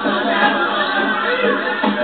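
Music playing over the chatter of a crowd.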